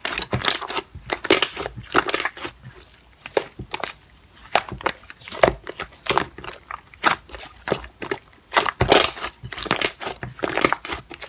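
Slime being squeezed and poked by hand, making irregular crackling clicks and pops.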